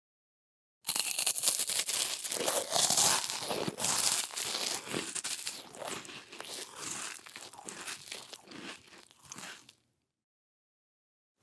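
A person chewing crunchy food, a long run of rapid crackling crunches that starts about a second in, is loudest for the first few seconds, grows quieter and stops shortly before the end.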